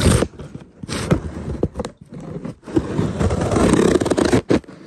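A cardboard shipping box being opened by hand: loud scraping and ripping of packing tape and cardboard, in short strokes at first, then one longer continuous rip from about two and a half seconds in to near the end.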